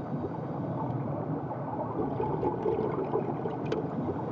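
Underwater ambience of surging water over a kelp reef, a steady low rush with a few faint clicks, the sharpest near the end.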